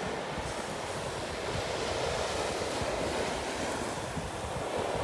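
Ocean surf washing steadily on a sandy beach, with wind gusting over the microphone.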